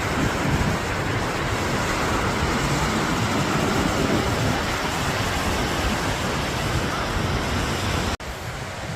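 Steady noisy roar of breaking surf with wind buffeting the microphone. It cuts off abruptly about eight seconds in, leaving a quieter background.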